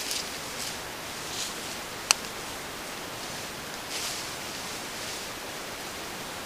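Steady microphone hiss from a trail camera, with soft rustles in dry leaf litter several times and one sharp click about two seconds in.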